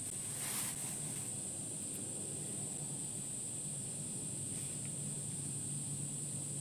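Summer insects making a steady high-pitched drone over a low steady hum. A brief rustle comes about half a second in.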